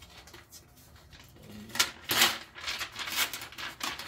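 Protective packaging wrap on a laptop rustling and crinkling as it is handled and pulled off, quiet at first, then in loud bursts from about a second and a half in.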